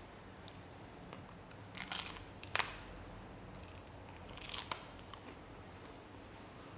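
Crisp crackling crunches of a peperone crusco, a dried crunchy sweet pepper, being bitten and chewed: short sharp crackles around two seconds in and again just past four seconds.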